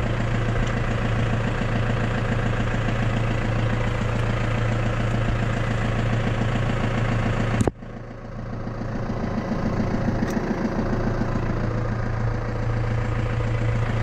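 Case IH Farmall 75C tractor engine idling steadily. About eight seconds in there is one sharp click, after which the sound dips briefly and builds back.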